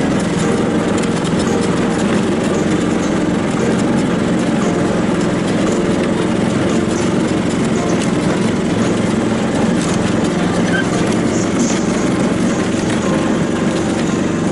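Small Briggs & Stratton 144cc single-cylinder four-stroke engine running steadily, driving a homemade wooden truck along.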